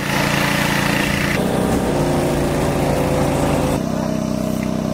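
Small petrol engine of a pressure washer running steadily, with the water jet hissing as it sprays mud off a cyclocross bike for about the first second and a half. After that the engine keeps running, shifting in level twice.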